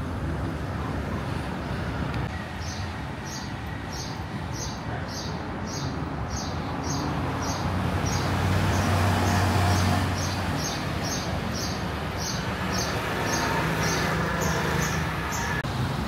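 City street traffic, with a vehicle's low rumble swelling as it passes about halfway through. A high, short chirp repeats evenly about two to three times a second from a couple of seconds in until near the end.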